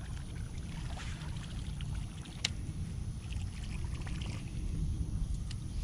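Steady low rumble on the microphone, with a few light clicks from the baitcasting reel and rod being handled, the sharpest about two and a half seconds in.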